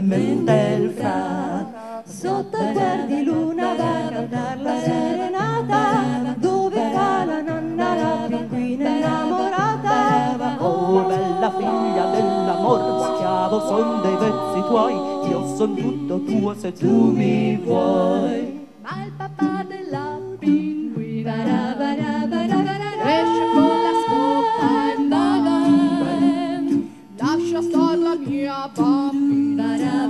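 A mixed a cappella group of men and women singing in harmony through microphones, with no instruments.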